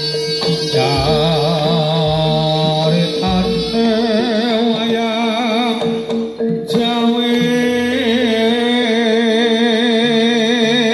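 Jaranan dance music: a wavering vibrato melody over a steady held drone tone, with percussion strokes in the first second.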